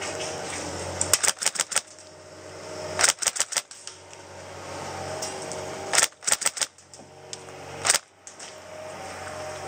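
Tokyo Marui next-generation CQB-R airsoft electric rifle firing three short full-auto bursts of rapid clacks, about a second in, three seconds in and six seconds in, then a single shot near eight seconds.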